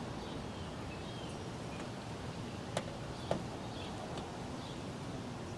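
Two sharp clicks about half a second apart near the middle, as plastic push-pin clips are pressed back into the trunk lid, over steady outdoor background noise with faint bird chirps.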